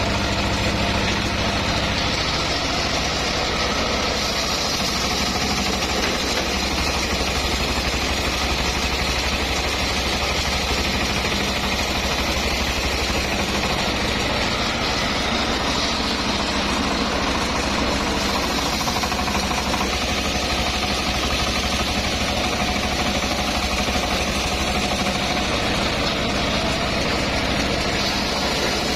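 Homemade circular sawmill running steadily, its engine drone unbroken, with a faint higher tone that stops about two-thirds of the way through.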